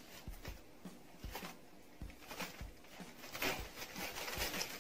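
Handling noise from picking at and peeling the tight plastic seal on a new eyeshadow palette box: scattered small clicks and crinkling rustles, with a louder rustle about three and a half seconds in.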